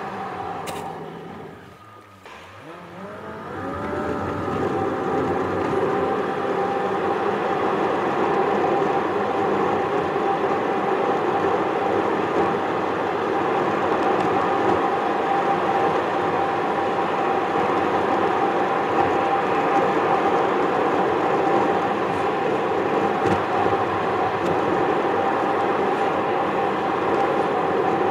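Car driving noise picked up by a dashboard camera: it quietens briefly about two seconds in, then rises with climbing engine tones as the car speeds up, and settles into steady road and engine noise.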